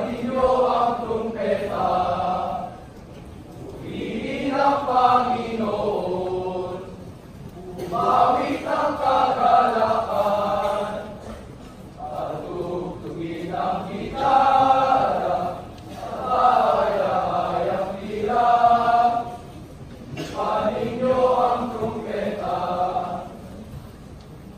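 A chorus of young voices chanting together in unison, in phrases of about three seconds with short breaks between them.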